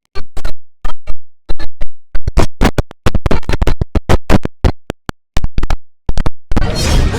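IBM OS/2 Warp 3 shutdown sound chopped by an effects edit into rapid, loud stuttering fragments, like a scratch remix. Near the end a continuous, fuller stretch with gliding tones takes over.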